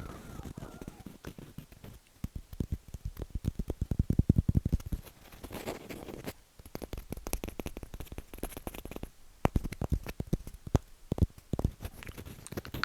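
Tapping on wooden objects for ASMR. A quick run of taps comes about two to five seconds in, followed by scattered single taps and knocks.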